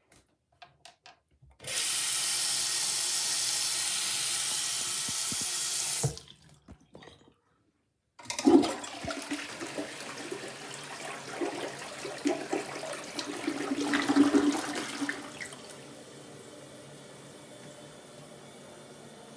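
Toilet being flushed: a few small clicks, then a loud rush of water for about four seconds. After a short break comes gurgling, swirling water, which settles into a steady faint hiss near the end, typical of the tank refilling.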